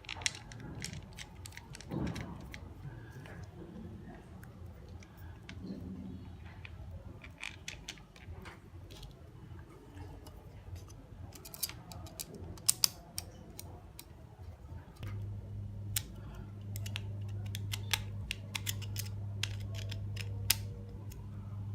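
Scattered clicks and taps of small plastic parts being handled as a clamp-on remote-holder mount is fitted and tightened onto a selfie pole. About two-thirds of the way through, a steady low hum starts underneath.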